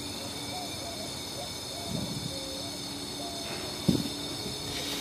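Steady hiss of compressed air fed at about 80 psi through a cylinder leak-down tester and escaping from the cylinder of a 2.0-litre engine. The gauge reads 5 against about 72 in, a humongous leak past valves damaged when the timing belt broke. Two light handling knocks come about two and four seconds in.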